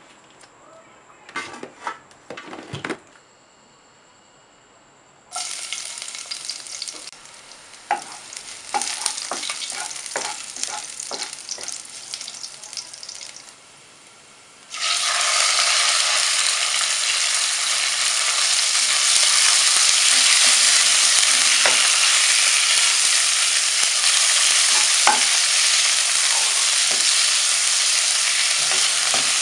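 A few knocks, then chopped garlic sizzling and crackling in hot oil in a non-stick wok with spatula scrapes. About halfway through the sizzle jumps to a much louder, steady frying hiss as sliced raw pork goes into the hot oil and is stirred with a wooden spatula.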